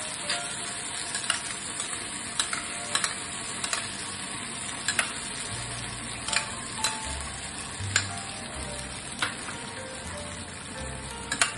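Tomato ketchup and honey sauce sizzling in hot oil in a black iron kadai on a gas stove, a steady hiss with frequent sharp clicks scattered through it.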